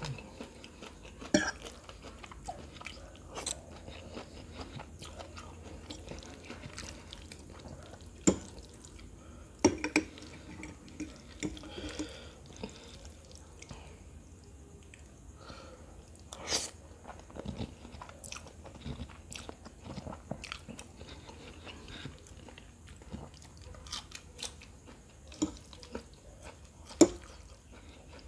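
Close-miked eating: a person chewing and biting into noodles, with wet mouth sounds and scattered sharp clicks and smacks, the loudest about a second before the end.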